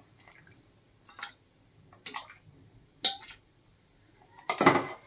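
Metal utensils clinking against a cooking pot as water is scooped out of the boiling rice: a few separate clinks about a second apart and a longer scrape near the end.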